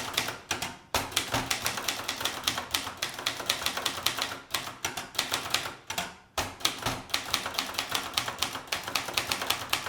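Typing on a Brother Deluxe 220 manual typewriter: a quick run of keystrokes, the type bars striking several times a second, with two short pauses, about a second in and about six seconds in.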